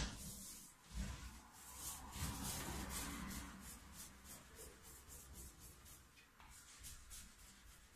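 Faint brush scrubbing over a paint-coated gum oil print on paper, in quick repeated strokes, clearing off the excess oil paint of the first layer.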